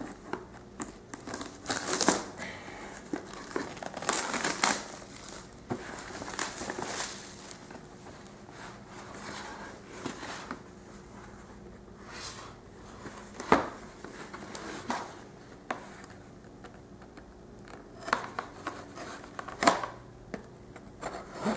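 Plastic shrink-wrap being slit with a knife and torn off a cardboard box, crinkling and rustling in irregular spurts, with a couple of sharp knocks.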